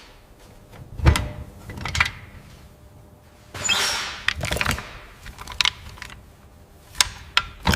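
Scattered metal clunks and clicks of hand tools on an engine being dismantled, with a short hiss about three and a half seconds in.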